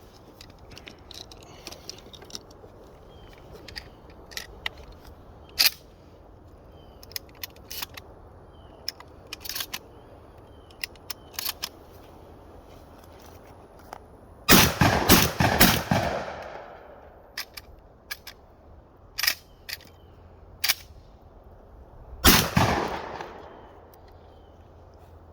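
Gunfire: faint, scattered shots throughout, a quick string of several loud shots about halfway through, and a single loud shot near the end, each with a short echoing tail.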